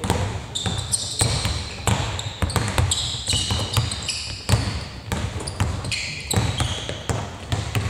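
Basketballs bouncing on a hardwood court with repeated thuds, and basketball shoes giving short high squeaks on the floor several times, in a large sports hall.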